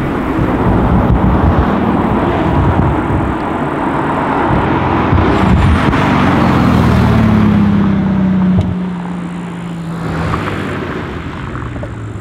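Pagani Huayra Roadster's twin-turbo V12 accelerating past at close range, loud for most of the time. About two-thirds of the way through the pitch falls and the sound drops away as the car moves off, with a brief rise again near the end.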